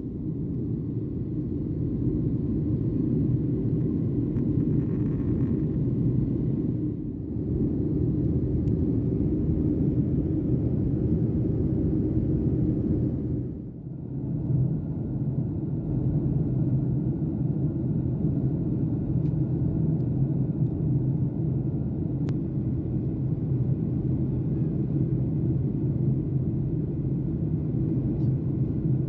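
Steady low rumble of a jet airliner's cabin noise in flight, engine and airflow noise heard from a window seat. It dips briefly twice, about seven and fourteen seconds in.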